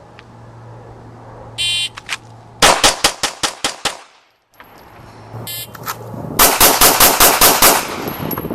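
Shot-timer beep, then about a second later a fast string of seven pistol shots fired from the draw, roughly a fifth of a second apart. After a brief break, another timer beep is followed by a second rapid string of shots.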